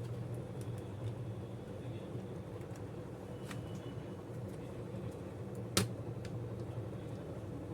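Light clicks of small parts and tools being handled while a laptop is put back together, with one sharper click about six seconds in, over a steady low hum.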